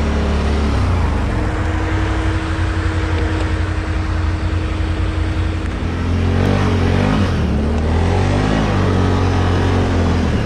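Can-Am Renegade ATV's V-twin engine running under load through deep snow, holding steady at first, then revving up and down from about halfway through as it pulls away.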